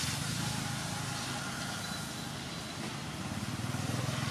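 A steady low engine rumble with an even hiss over it, growing slightly louder near the end.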